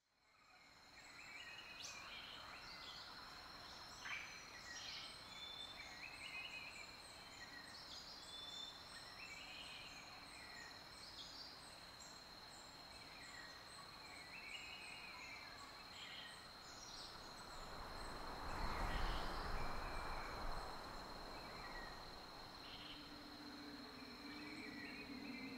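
Outdoor countryside ambience fading in: small birds singing and chirping over a steady thin high-pitched whine. A rushing swell of noise with a low rumble rises and fades about two-thirds of the way through, and a low steady hum comes in near the end.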